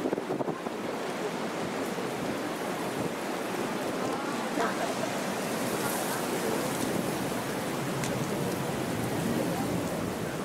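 Steady background noise with faint, indistinct human voices mixed in, without clear words.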